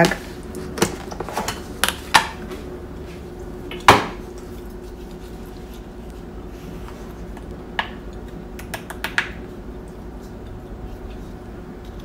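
Plastic food container opened and ground coffee scooped into an espresso portafilter: a few sharp clicks and knocks of plastic and metal, the loudest about four seconds in, then a few lighter taps later on.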